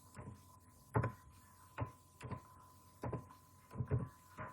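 Computer keyboard keys being typed in short irregular strokes, about six keystrokes, while code is entered. A faint steady high-pitched tone runs underneath.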